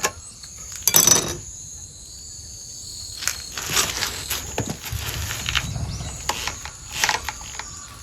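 A round chainsaw file scrapes once across a tooth of the chain about a second in. Light clicks and taps follow as the chain and file are handled.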